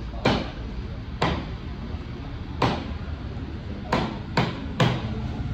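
A large knife chopping through raw fish flesh onto a wooden chopping block: six sharp chops at uneven spacing, the last three coming quicker.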